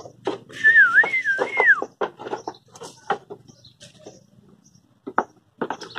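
A single high whistle that wavers up and down in pitch for about a second, followed by scattered knocks and clatter on the wooden boards of the sheep pen.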